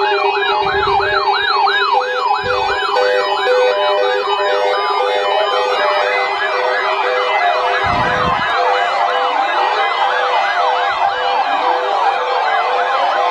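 Electronic sirens sweep rapidly up and down, about two cycles a second, over a steady low tone and a repeating beep. More sweeps overlap as it goes on, and slower rising wails join in during the second half.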